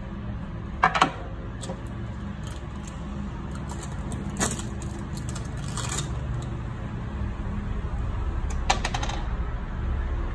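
Handling of small plastic and metal parts and tools on a wooden tabletop: scattered clicks and knocks, loudest about a second in, with a quick run of clicks near the end as a wire stripper is worked on a battery lead. A steady low hum runs underneath.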